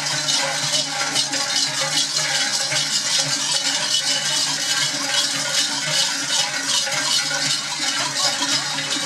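Many large bells on the Perchten costumes jangling and clanging together in a dense, continuous din as the fur-clad figures move and shake.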